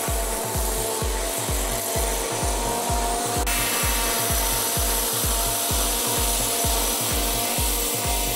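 Scag Tiger Cub zero-turn mower running under load, its engine and blades cutting tall, thick grass with a steady rasping noise. A steady low beat, about three or four a second, runs underneath, likely from background music.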